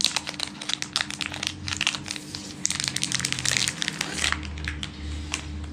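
Thin clear plastic bag crinkling and crackling as a stick is slid out of it by hand, busiest for about four seconds and then dying down.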